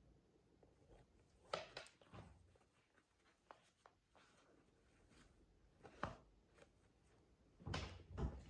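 Faint rustling and a few light taps of shoelaces being pulled and tied on an Adidas ZX 2K Boost sneaker, with the loudest taps and scuffs near the end.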